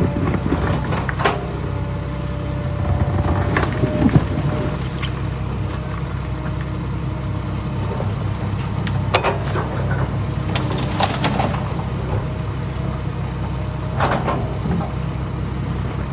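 Heavy diesel construction machinery running steadily, with several sharp metallic clanks and squeals from the working machine.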